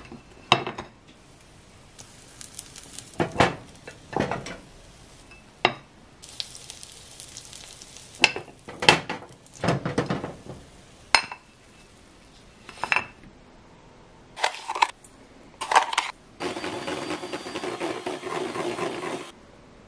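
Metal clanks and clatters of a hinged cast-metal Mickey-shaped pancake iron being opened, closed and handled on a gas hob, with batter sizzling in it. Near the end an electric hand mixer runs steadily for about three seconds, whipping cream in a steel bowl.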